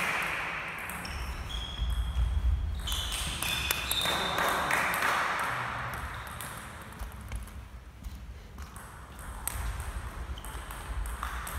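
Table tennis ball clicking off bats and table: a last hit right at the start, a pause, then the serve and a new rally starting near the end.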